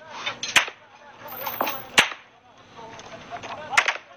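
Three sharp gunshots about a second and a half apart, the middle one the loudest.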